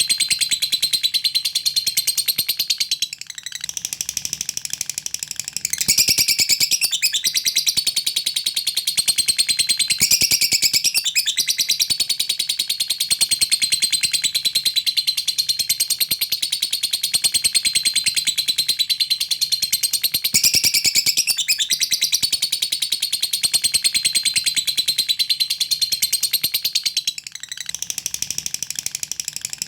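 Lovebird giving a long, unbroken high-pitched chatter made of very fast ticks (the 'ngekek' trill used as a lure call), with short dips about three seconds in and near the end.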